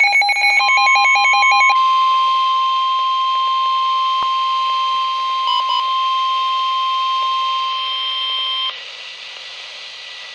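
Emergency Alert System tones for a severe thunderstorm warning. The buzzing digital header data bursts end about a second and a half in, over the start of a steady single-pitch warning alarm tone, the NOAA Weather Radio 1050 Hz tone. It holds for about eight seconds, then cuts off suddenly, leaving faint hiss.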